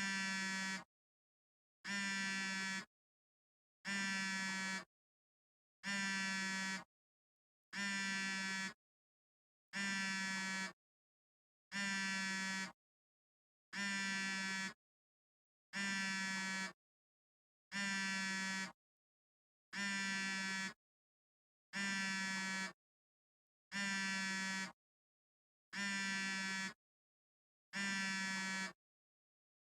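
Smartphone vibrating in repeated buzzes, each just under a second long, one about every two seconds, with silence in between.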